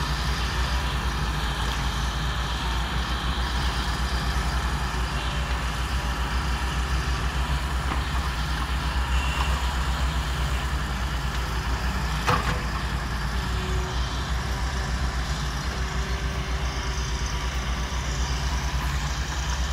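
Volvo EW145B wheeled excavator's diesel engine running steadily as the machine digs. A single sharp knock comes about twelve seconds in.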